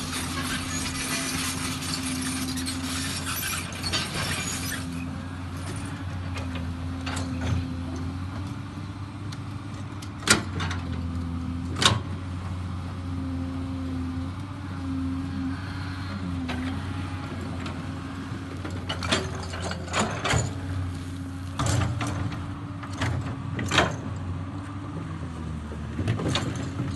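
Komatsu PC200 excavator's diesel engine running steadily on a test run after repair, with a loud hiss for the first five seconds or so. Sharp knocks break in now and then, two strong ones about ten and twelve seconds in and a cluster around twenty to twenty-four seconds.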